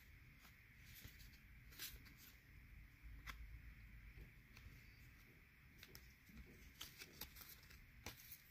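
Near silence, with faint, scattered clicks and rustles of trading cards being handled and sorted.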